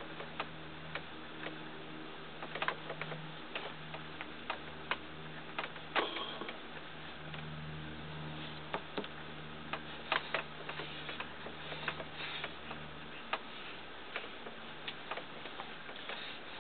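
Fingers pressing and rubbing pastel into paper on a tabletop, making irregular soft taps and scrapes, with a steady low hum underneath.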